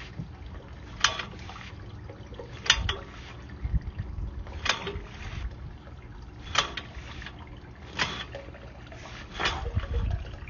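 Water trickling, with a sharp splash every second or two.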